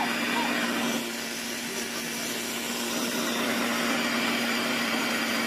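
Countertop blender running steadily, its motor humming as it blends crushed Oreo cookies and milk into a thick batter.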